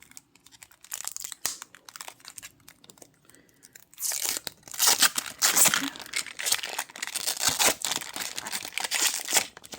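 Plastic packaging crinkling and rustling as small parts are handled, much louder and denser from about four seconds in, with only light scattered clicks before that.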